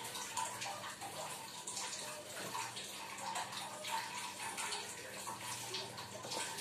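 A hand mixing and kneading crumbly kue ketawa dough in a plastic tub: a steady run of soft, irregular rubbing and crumbling sounds as the flour mixture is pressed and turned.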